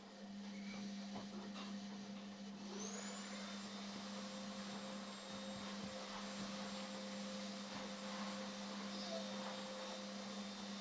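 Indesit washing machine's drum motor during the wash phase: a steady hum, then about three seconds in the motor starts a turn of the drum with a short rising whine and runs on steadily.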